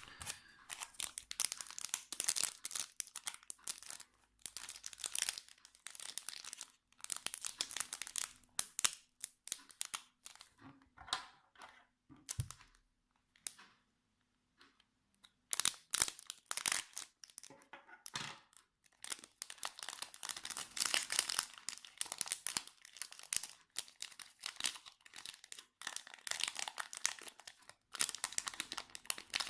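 Foil Yu-Gi-Oh booster pack wrapper being crinkled and torn open by hand, in irregular bursts of crackling with a short quiet pause about halfway through.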